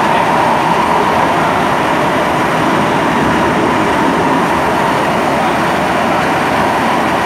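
SMRT C151 metro train running at steady speed, heard inside the carriage: a continuous rumble of wheels and running gear with the traction motors' whine held at one steady pitch.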